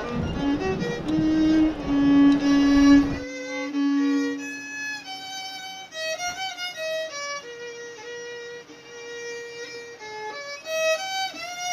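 Background music: a solo fiddle playing a melody of held and sliding notes. For about the first three seconds it plays over a rushing background that cuts off suddenly.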